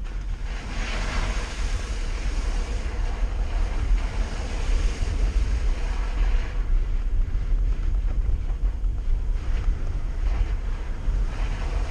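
Jeep driving slowly on a wet sandy trail: a steady low engine and tyre rumble with wind buffeting the microphone, and a rushing hiss over roughly the first half.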